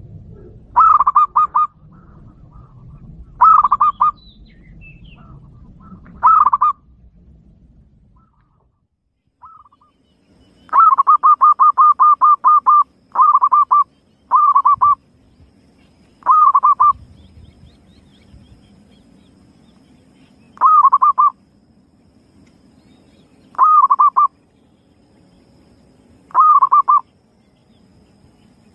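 Zebra dove (perkutut) song used as a lure call: short phrases of quick staccato cooing notes, repeated every few seconds, with one longer run of notes about eleven seconds in.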